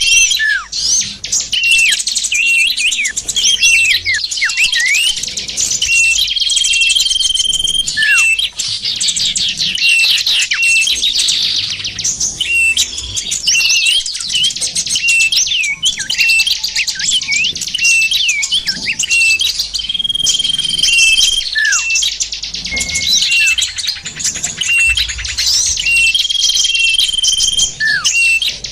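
Dense chorus of many small songbirds chirping and twittering, with repeated short level whistles and quick downward-sliding notes. It is a lure call used to draw small birds in for trapping.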